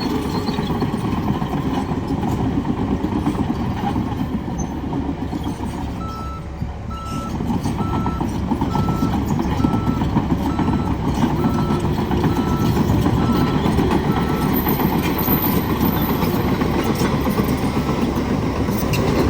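Heavy diesel engine running, with a vehicle's backup alarm beeping steadily about once a second from about six seconds in until near the end.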